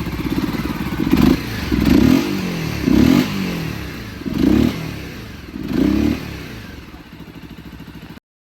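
Honda CBR250RR motorcycle engine running at idle and revved with five sharp throttle blips about a second apart, each rising and falling back to idle. The sound then fades and cuts off near the end.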